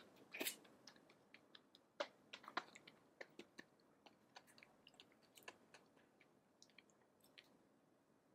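Faint close-up chewing of a spoonful of soft oatmeal risotto: irregular small wet mouth clicks and ticks, a little stronger about half a second in and again around two seconds in.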